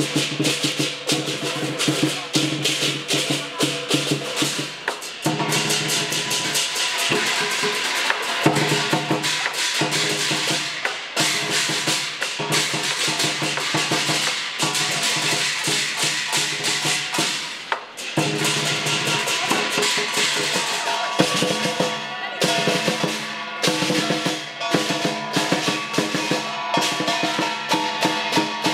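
Music with a busy drum and percussion beat over sustained chords that change every few seconds.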